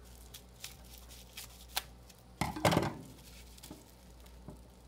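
Hands unwrapping a small lock wrapped in bubble wrap and red electrical tape: crinkling plastic and peeling tape with scattered small clicks, and a louder crackling burst about two and a half seconds in.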